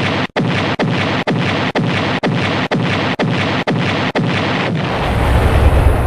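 Sound-effect artillery fire: a rapid series of about ten blasts, roughly two a second, each dying away quickly, followed near the end by a heavier, deeper explosion rumbling on.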